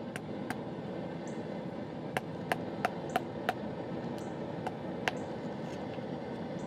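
Hammer blows on steel at a small railroad-spike stake anvil: about ten light, irregular strikes, each with a brief metallic ring, most of them in a quick run around the middle. A steady rushing noise runs underneath.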